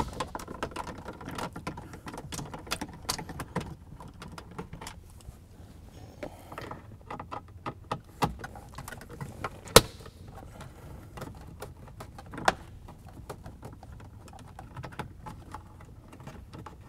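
Small clicks and scrapes of a nut driver with a Torx bit working the screws out of a plastic instrument-cluster bezel, with two sharper clicks about midway and a few seconds later.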